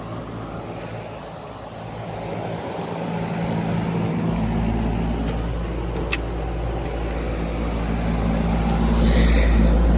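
Ameristar heat pump running: the Copeland scroll compressor's steady hum under the rush of the outdoor condenser fan, growing louder partway through, with a single tick about six seconds in and a brief hiss near the end.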